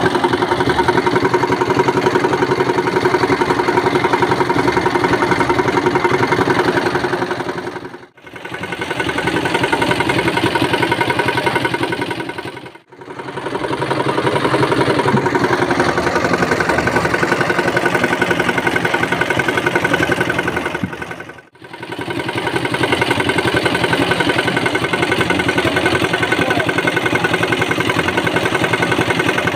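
Concrete mixer's small single-cylinder diesel engine running steadily with a rapid chugging beat, as the drum turns. The sound dips out briefly three times and comes straight back.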